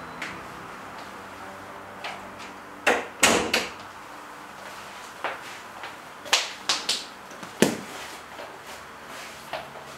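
Front door pushed shut, its latch clicking and the door knocking into the frame about three seconds in. Scattered knocks and clicks follow as a bag is handled and set down.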